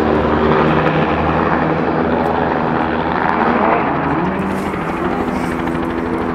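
Bell helicopter flying low past, its main rotor and turbine engine running steadily, mixed with a rally car's engine; a pitch rises about three seconds in.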